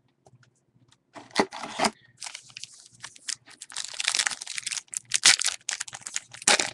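Foil trading-card pack wrapper crinkling and tearing as it is handled and opened, an irregular crackling and rustling that starts about a second in.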